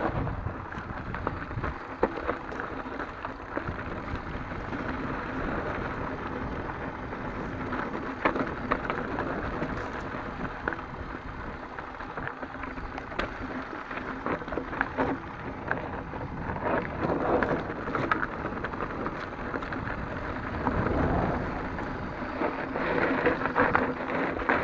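Mountain bike (Santa Cruz Hightower) rolling down a dry, rocky dirt trail: tyres crunching over loose dirt and stones in a steady rush of noise, with many small clicks and rattles from the bike. It gets louder in rougher stretches about two-thirds of the way through and near the end.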